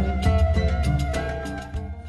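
Background music: an instrumental track with a held melody over a steady low beat.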